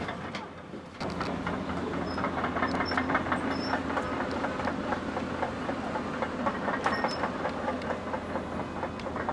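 Heavy machinery running with a steady low engine hum under a dense, continuous metallic clattering and rattling, starting abruptly about a second in.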